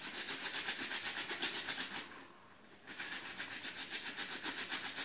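Wet blouse fabric scrubbed hand against hand with dish detergent, a quick rhythmic rubbing of several strokes a second that stops for under a second about two seconds in, then resumes. The scrubbing works the detergent into a crust of body oil and deodorant in the underarm.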